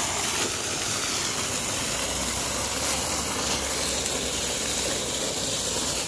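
Steady splashing hiss of a thin jet of sulphur spring water spouting from a small pipe and spattering onto wet stone.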